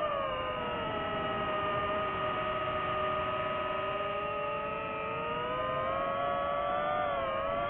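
DJI FPV drone's motors and propellers whining as throttle changes. The pitch drops about a second in, stays low, then climbs again near the end, with the tones of different motors splitting apart and coming back together.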